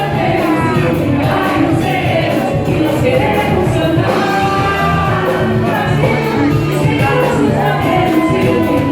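Live band music with singing and a steady beat.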